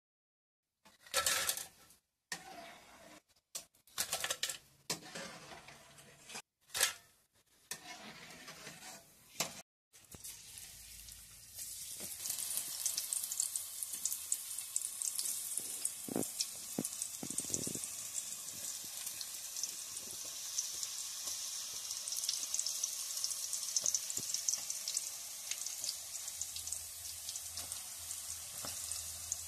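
Short scrapes and knocks of a slotted ladle lifting fried tapioca chips into a perforated metal strainer, in separate bursts with brief gaps. Then, from about ten seconds in, thin raw tapioca slices deep-frying in hot coconut oil: a steady crackling sizzle, with a couple of low knocks around the middle.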